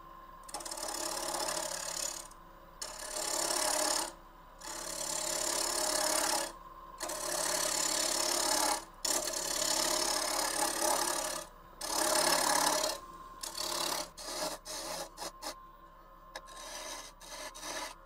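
Half-inch bowl gouge cutting end grain on a spinning wooden winged-box blank on a lathe. It makes a rough scraping sound in passes of a second or two with short breaks, and these turn into shorter, choppier cuts near the end. The cut is interrupted by the wings, and the lathe is running slower than the turner wants for it.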